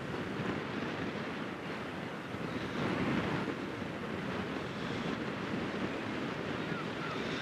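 Wind buffeting the microphone: a steady, noisy rumble that swells briefly about three seconds in.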